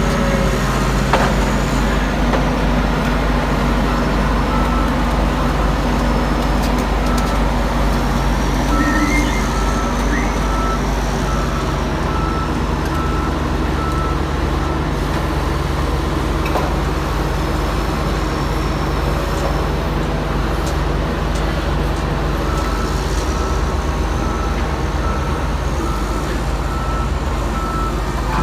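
Komatsu PC750-6 hydraulic excavator's diesel engine running steadily under work, with a high beeping alarm sounding in two long stretches and a few sharp knocks.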